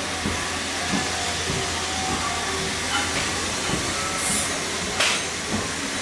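Toggle latch clamp on a stainless-steel muffle furnace door being unlatched and the door swung open, with a few light metallic clicks. A steady hiss and low hum lie underneath throughout.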